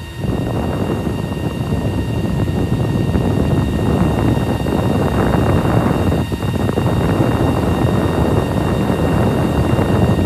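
Loud, steady rumbling noise, heaviest in the low range, with faint thin steady tones above it and a brief dip about six seconds in.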